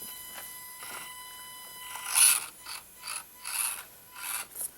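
Axial SCX24 micro crawler's electric motor and geared drivetrain: a steady high whine for about two seconds, then a run of about six short bursts as the throttle is worked, the loudest about two seconds in.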